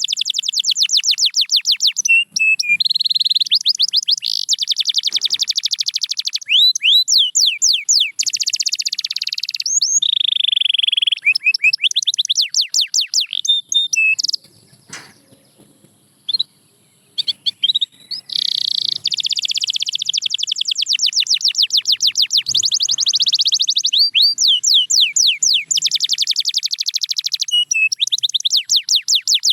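Canary singing: long rolled phrases of fast repeated sweeping notes and trills, with a pause of a few seconds about halfway through.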